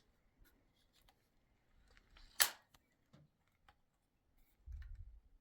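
Handling noise from a .22 LR AK-style rifle: scattered faint clicks and one sharp metallic click about two and a half seconds in, then a low rumble near the end.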